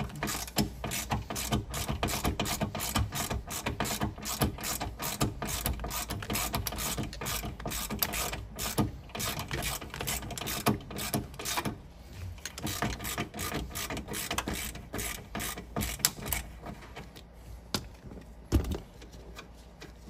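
Ratchet wrench clicking in rapid runs as a seat belt mounting bolt is backed out. The clicking thins out and gets quieter in the second half.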